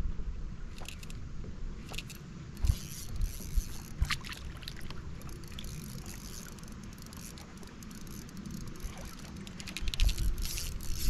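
Water and handling sounds in a kayak on the water: light splashing and scattered clicks and knocks over a low rumble, getting busier and louder near the end.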